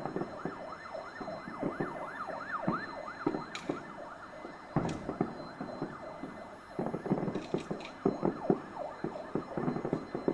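Fireworks stock going off in a fireworks factory explosion: a continuous barrage of bangs and crackling. Many short rising-and-falling whistles overlap in the first few seconds, and the bangs come thickest in the second half.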